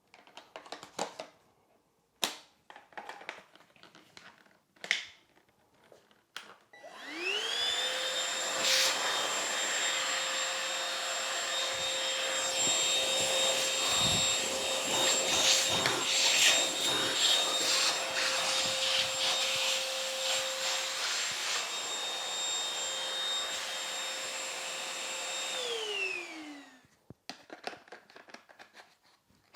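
A few clicks, then an Oraimo UltraCleaner H3 cordless handheld vacuum cleaner is switched on. Its motor spins up with a rising whine, runs steadily with a high whine over a rush of air for about twenty seconds, then winds down with a falling whine as it is switched off.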